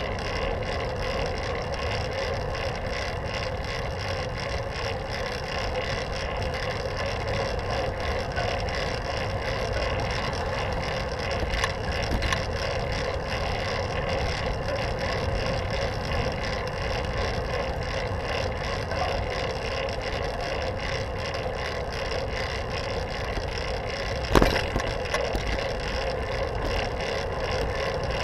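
Steady rolling noise of a fixed-gear bicycle riding on pavement, tyre and drivetrain hum mixed with wind rush, with one sharp knock near the end.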